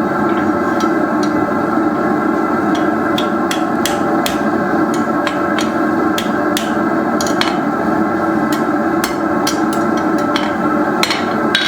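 Blacksmith's hammer striking steel on an anvil, irregular blows about two to three a second, over a steady drone.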